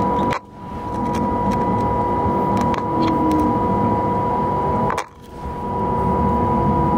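Steady machine hum with an even high whine over it, dropping out briefly twice.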